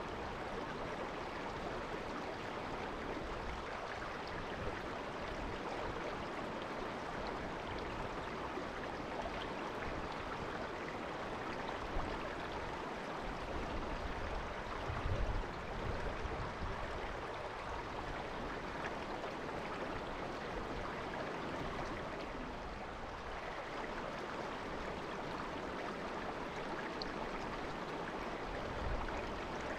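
Shallow river water babbling steadily over its bed, an even rushing hiss, with a few brief low thumps around the middle.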